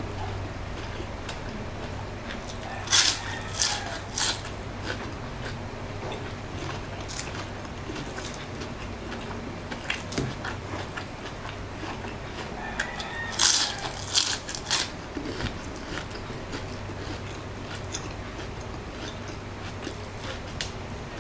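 A person biting and chewing fried lumpia shanghai spring rolls, with clusters of louder crisp bites about three seconds in and again around thirteen to fifteen seconds in, over a steady low hum.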